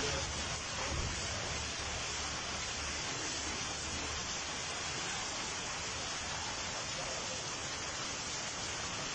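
Steady hiss of heavy rain and floodwater, recorded on a phone, with a low rumble under it for the first few seconds.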